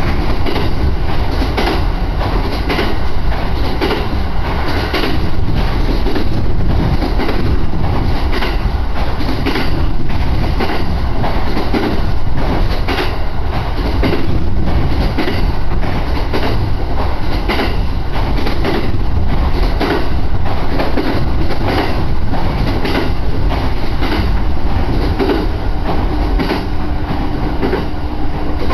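Echigo Line local train running, heard from inside the passenger car: a steady rumble of wheels and running gear, with regular clicks of the wheels over rail joints. A faint steady whine appears near the end.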